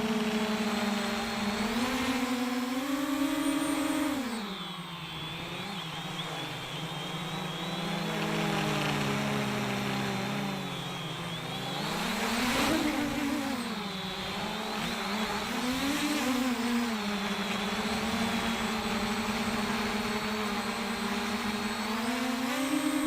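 JJRC X1 quadcopter's motors and propellers humming in flight, heard from the onboard camera. The pitch dips and swells several times as the throttle changes, then holds steady for the last several seconds.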